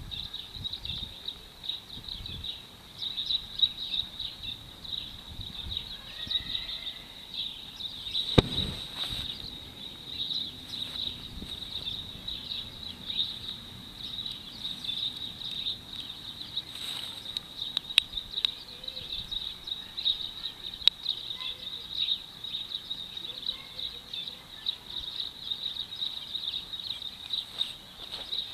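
Steady, high-pitched insect chorus of cicada type, a continuous shrill buzz with rapid flutter, broken by a few single sharp clicks, the loudest about eight seconds in.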